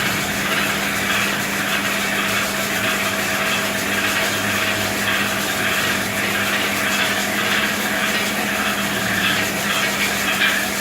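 Raffia twine winding machine running steadily: a constant motor hum with an even hiss above it.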